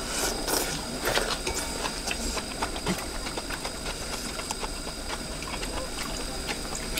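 Hot pot broth simmering with a steady low hiss, with soft chewing and slurping near the start and a few light chopstick clicks against the pot.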